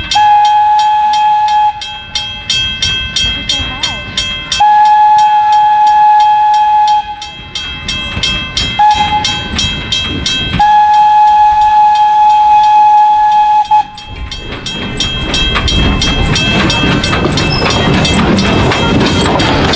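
Steam whistle of the steam-powered Thomas the Tank Engine replica sounding long, long, short, long, the railway crossing signal, over the rhythmic exhaust chuffing of the locomotive at about three beats a second. Near the end the engine runs close by with a steady hiss and rumble.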